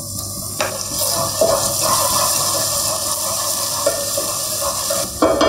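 Ginger, garlic and green chilli paste frying with sliced onions in hot oil in a pot, a steady sizzling hiss that grows brighter about a second in as it is stirred. A few light knocks of a wooden spatula against the pot come through. This is the stage where the paste's raw smell is fried off.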